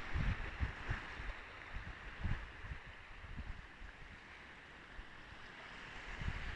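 Sea surf washing in, a steady hiss, with wind buffeting the microphone in low gusts; the wash dies down in the middle and builds again near the end.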